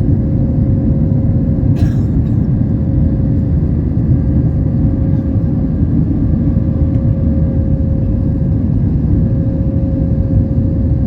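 Jet airliner cabin noise in cruise: a steady, loud rush of engines and airflow with a faint steady hum, and a small click about two seconds in.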